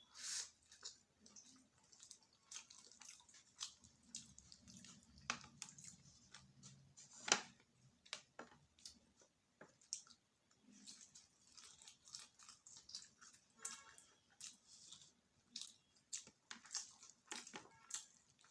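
Close-up chewing of cheese macaroni eaten by hand: irregular wet smacks and clicks of mouth and food, the loudest about seven seconds in.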